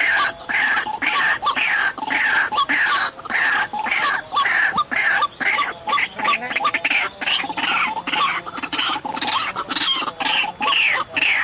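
White-breasted waterhen calls: a continuous run of harsh, repeated croaking notes, about three a second, without a break.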